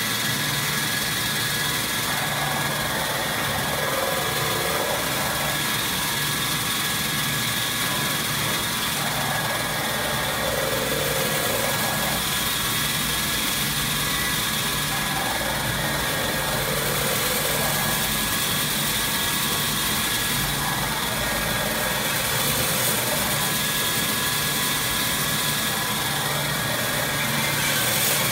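Steady mechanical whirring of a manual maxi-roll paper cutting machine running, its spinning blade cutting a roll of tissue paper. A change in the sound recurs about every five or six seconds.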